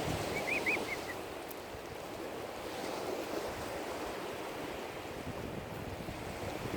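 Steady rushing noise of wind and small waves on an open lake, with three short, high, rising-and-falling chirps about half a second in.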